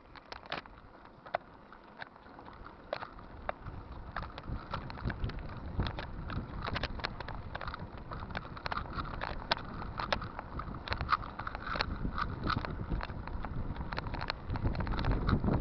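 Bicycle being ridden, with rumble and wind noise on the microphone that build up over the first few seconds as it gets going, and many irregular sharp clicks and rattles throughout.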